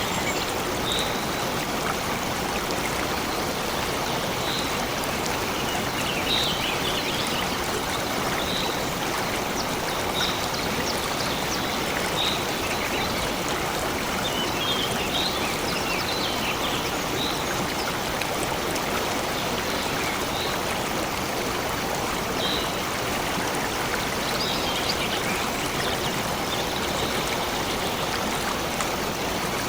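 Water in a stream flowing steadily, with a bird giving short high call notes every second or two and a few brief twittering phrases over it.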